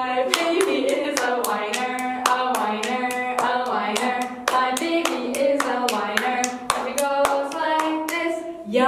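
Hands clapping in a quick, steady rhythm of about three to four claps a second, as two players slap their own and each other's palms in a hand-clapping game, with a sing-song chanted rhyme over it.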